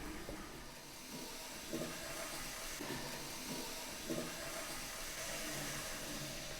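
N gauge model train locomotive running along the track under power: a steady motor whir and hiss with the wheels rumbling on the rails and a few faint clicks.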